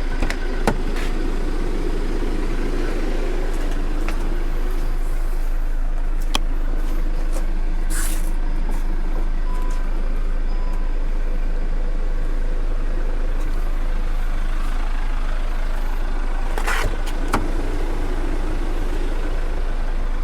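Car engine idling steadily with a low hum. A few short clicks and knocks come near the start and again about 17 seconds in, and there are brief rushes of noise around 8 and 17 seconds in.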